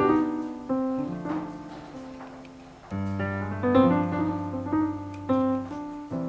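Background piano music: a calm melody of struck notes and chords, each note fading after it is played.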